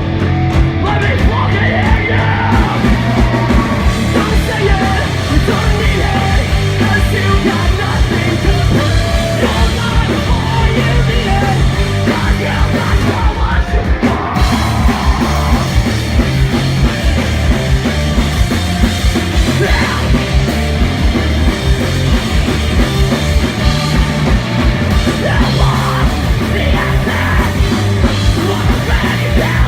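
Punk rock band playing live at full volume: distorted guitars, bass and drums, with yelled vocals over the top.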